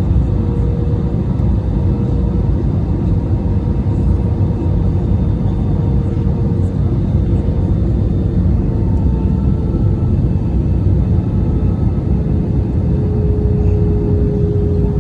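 Cabin noise inside an Airbus A319 airliner in flight: the steady rumble of airflow and the twin jet engines, with a steady engine hum whose pitch sinks slightly in the last few seconds.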